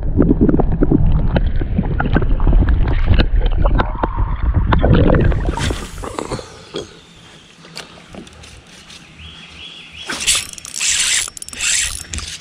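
Muffled underwater sound of creek water churning, with low rumbling and many sharp clicks, as the camera is held submerged while a bass is released. About six seconds in the camera comes up into open air and the sound turns quieter, with scattered clicks. Several loud, rushing noisy bursts follow near the end.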